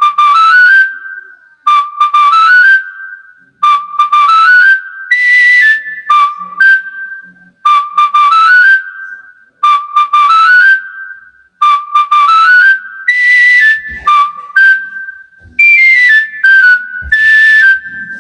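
High, breathy whistle playing a short tune: a phrase of notes stepping upward and then holding, repeated over and over about every two seconds.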